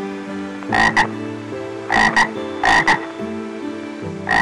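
A frog croaking: short double croaks, three in about two seconds, with another beginning at the very end.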